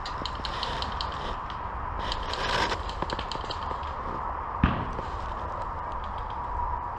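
Rapid crackling pops, typical of distant airsoft gunfire, over a steady hiss, with a short rustle a couple of seconds in and one sharp knock about four and a half seconds in.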